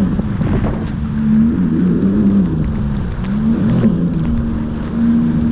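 Sea-Doo GTI 155's Rotax three-cylinder four-stroke engine running under way, its note dipping and climbing back twice as the throttle is eased and reopened. Water spray and wind rush over the camera microphone.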